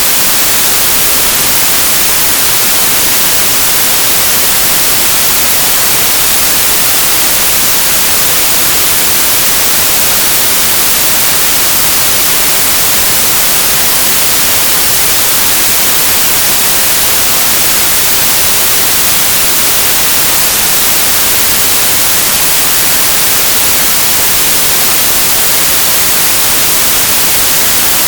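Synthesized white noise: a steady, loud, unchanging hiss, bright and heavy in the treble, with no events or changes.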